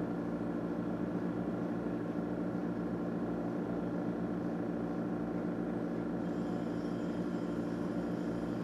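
A motor running steadily: an even hum with several held low tones.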